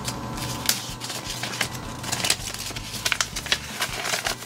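Paper rustling and crinkling as hands pick up and handle a folded instruction sheet: irregular small crackles and clicks, busier near the end.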